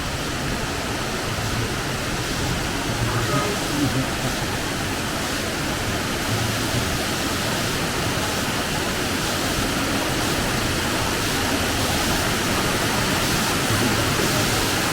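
Steady rush of a waterfall's falling water inside a cave.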